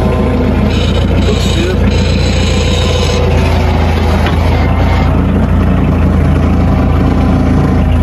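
Engine of a Hudson bandsaw sawmill running steadily. A brighter, higher-pitched layer joins it for a couple of seconds, starting about a second in.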